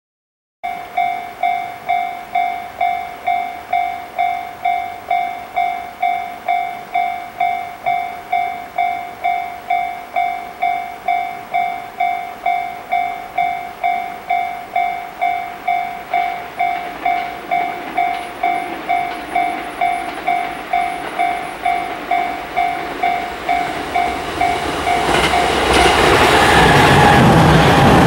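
Level-crossing warning bell ringing steadily, a clear electronic ding about twice a second. From about two-thirds of the way in, the noise of an approaching Series E257 electric train grows, and near the end the train passes close by, drowning out the bell.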